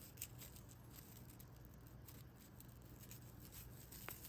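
Faint rustling of raffia yarn being drawn through crochet stitches with a needle to weave in the yarn end, with a couple of light ticks.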